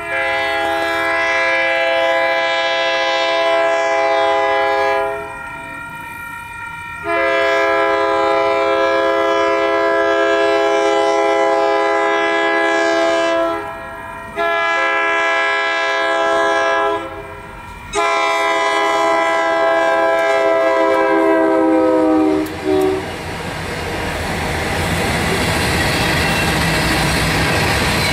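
Diesel locomotive horn on the lead unit of a Union Pacific freight, a GP15AC, blowing a multi-note chord in four long blasts with the third shorter, the long-long-short-long pattern sounded for a grade crossing. After the last blast the passing freight cars take over, with wheels rumbling and clicking over the rail joints and growing louder near the end.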